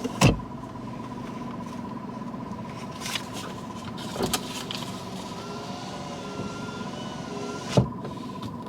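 Inside a car's cabin: a steady low vehicle hum with a faint steady high tone, broken by a few sharp knocks and thumps, the loudest just after the start and near the end.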